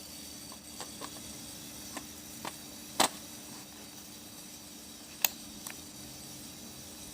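Scattered light clicks and taps from handling objects, about seven in all. The loudest comes about three seconds in and another sharp one a couple of seconds later, over a steady background hiss with faint hum tones.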